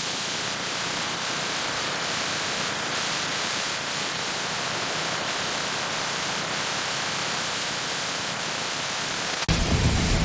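Steady, even hiss of noise with no rhythm or tone. About nine and a half seconds in it cuts abruptly to a louder sound with a strong low hum.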